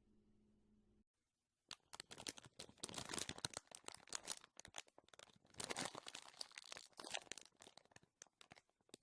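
Slime being squeezed and worked by hand, giving a dense run of crackling and clicking pops that starts about two seconds in and thins out near the end.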